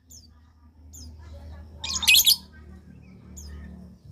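Lovebird calling: a few faint high chirps, then one loud, shrill, rasping burst of chatter about two seconds in, lasting about half a second. This is the kind of call used as a lure to get another lovebird to answer.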